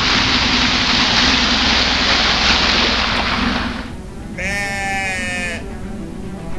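A motorcycle ploughs through a muddy puddle, and the water spray makes a loud, steady rush for the first few seconds. It dies away, and then a sheep bleats once, a wavering call about a second long.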